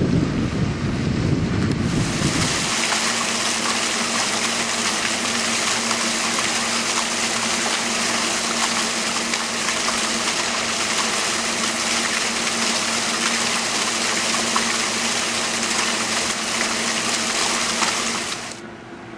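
A low rumble of wind on the microphone for about two seconds. Then a steady rush of running water with a faint hum under it, which cuts off suddenly near the end.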